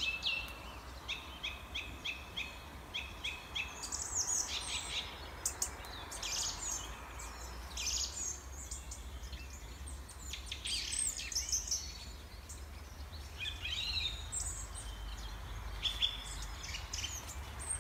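Birds chirping and singing: many short calls and trills, some in quick even runs, over a steady low hum.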